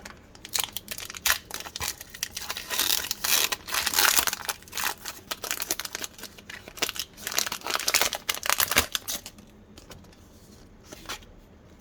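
A foil Pokémon card booster pack being torn open and crinkled: a dense run of crackling rustles that dies down about nine seconds in, leaving only a few faint rustles.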